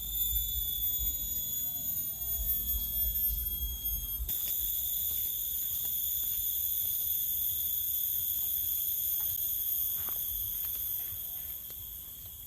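Insect drone, a steady high-pitched whine with overtones that shifts slightly about four seconds in, over a low rumble that stops at the same point.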